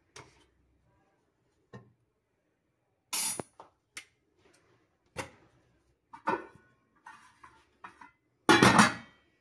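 Aluminium cookware clattering: scattered clinks and scrapes as a hot cake tin is handled beside an aluminium kadai with a wire stand, a loud clank about three seconds in, and the loudest clatter near the end as the kadai's aluminium lid is set down on it.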